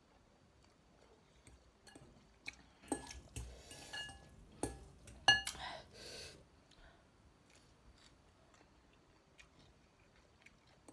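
Noodles slurped from a fork and a fork clinking against a glass bowl: a few sharp, ringing clinks and two short slurps between about two and six seconds in, the loudest clink just after five seconds. Quiet otherwise.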